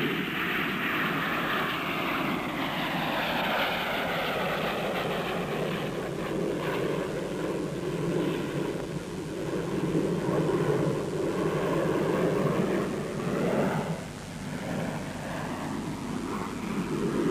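Aircraft engine and airflow noise as the aircraft enters a spin: several tones slide down in pitch over the first few seconds, then settle into a steady rushing drone that dips briefly near the end.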